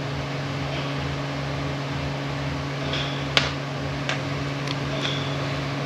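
Steady background hum of a fan or air-conditioning unit, with one sharp metallic click a little past halfway and a couple of faint ticks, as small impact-wrench parts are handled.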